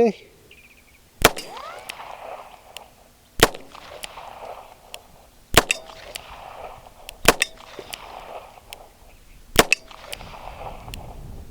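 Smith & Wesson Model 617 .22 LR revolver firing CCI standard velocity rounds: five shots, roughly every two seconds, with fainter sharp cracks in between.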